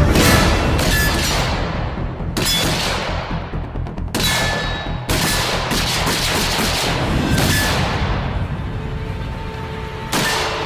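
Rifle shots fired singly at irregular intervals, about seven in all, each followed by the ring of a steel target being hit.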